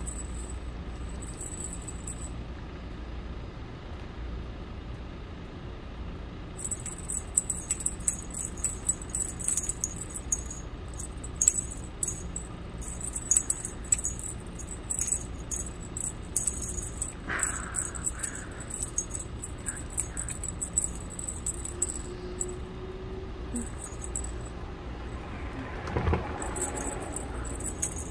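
Feather wand cat toy jingling and rattling in short bursts as a cat paws and pulls at it, starting about six seconds in.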